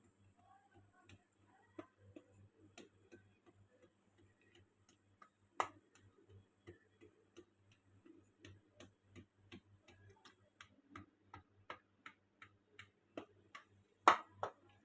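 Faint, regular ticking clicks, about three a second, with a sharper click midway and two louder clicks near the end.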